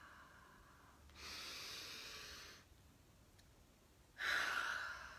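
A woman taking a slow, deep breath in, then about three seconds later a louder, longer breath out.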